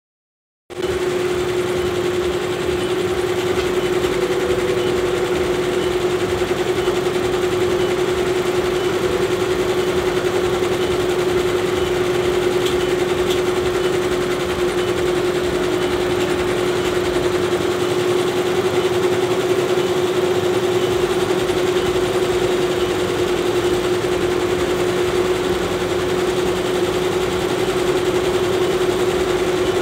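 Commercial multi-needle embroidery machines running and stitching: a steady, continuous mechanical clatter with a constant hum, starting about half a second in.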